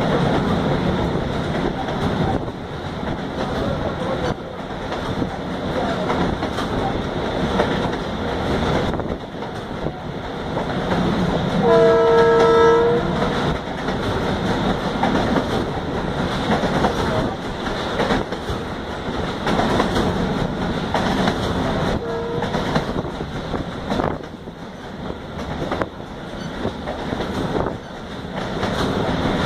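Moving passenger train heard from on board: a steady running rumble with wheels clacking over the rails. A train horn sounds once for about a second near the middle, and briefly again later and near the end.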